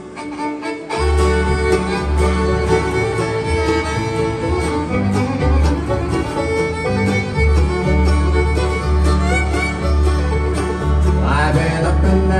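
Acoustic bluegrass band playing an instrumental intro, with fiddle, banjo, acoustic guitar, mandolin and upright bass. The full band comes in about a second in over a pulsing bass line.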